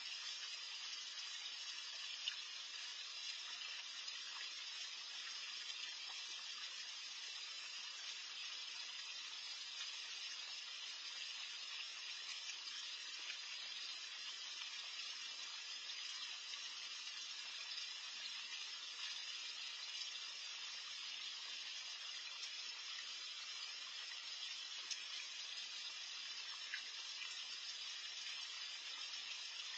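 Faint, steady splashing and trickling of water from a garden pond's bubbler, with a few faint ticks.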